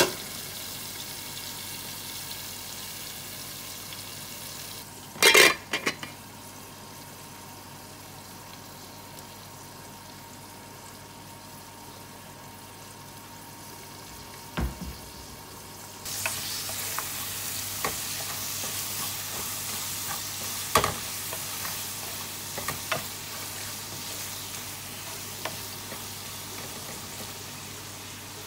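Sliced onions and whole spices frying in vegetable oil in an aluminium pot: a steady sizzle, with one loud clank of metal about five seconds in, after which the sizzle is quieter for a while. About halfway through the sizzle grows louder again, and a spoon knocks and scrapes against the pot as the onions are stirred.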